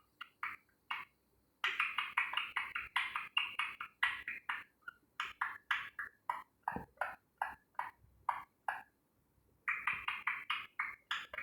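Pet parrot chattering: a rapid string of short, clipped syllables in several runs with brief pauses between them.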